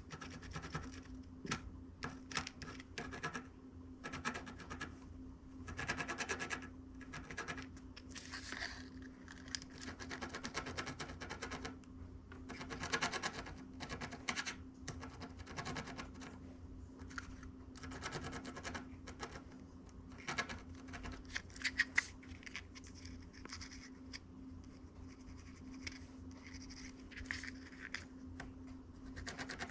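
Soldering iron tip being rubbed clean in irregular scratching strokes, scraping off oxidation before tinning, over a steady low hum.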